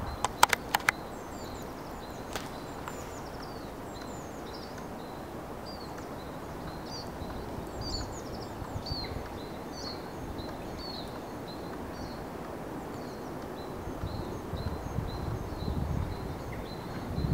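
A small songbird calling over and over with short, high chirps, against a steady low outdoor rumble that swells near the end. A quick run of sharp clicks comes right at the start.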